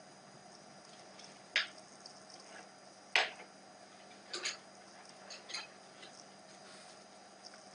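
Coloured pencils clicking and knocking on a table as one pencil is put down and another is picked up: a few separate sharp clicks, the loudest about three seconds in.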